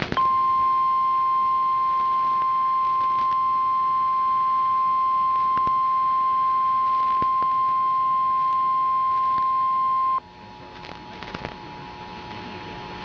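Emergency Alert System attention tone: a single steady high-pitched beep held for about ten seconds, cutting off suddenly, announcing a National Weather Service flash flood warning.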